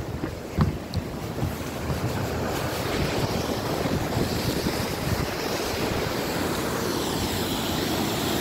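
Steady rush of a waterfall pouring over a concrete spillway, growing louder as it is approached, with a few footfalls on a wooden boardwalk in the first second.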